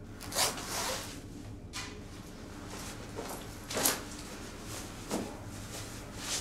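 Clothing rustling as a hoodie is pulled off: a series of short fabric swishes, the loudest about four seconds in.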